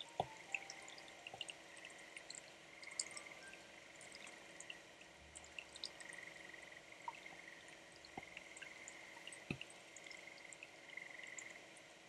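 Faint rain ambience with many small scattered drips and ticks, and a few sharper taps.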